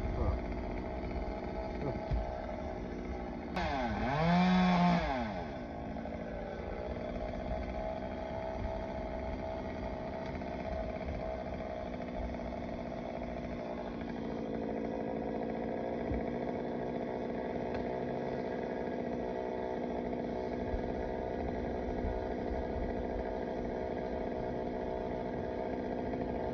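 Chainsaw engine idling up in the tree, revved up once for about two seconds around four seconds in, then dropping back to a steady idle.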